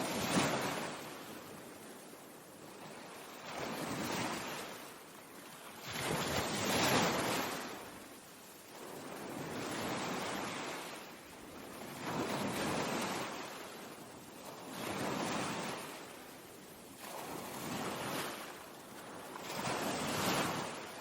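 Ocean surf: waves wash in one after another, each a swelling rush of noise that rises and fades every two to three seconds, about eight in all.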